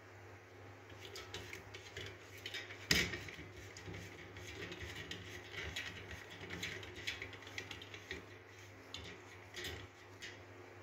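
Scattered metallic clicks and clinks of a steel pipe and pliers being handled while the pipe is fitted into a hand-operated grease pump, with one sharp knock about three seconds in.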